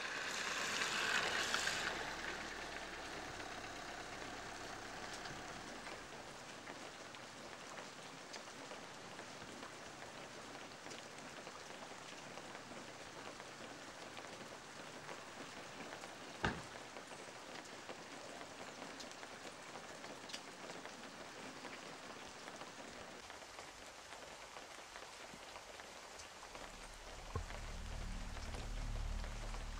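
Steady rain falling on pavement, a little louder in the first couple of seconds, with one sharp knock about halfway through. Low music comes in near the end.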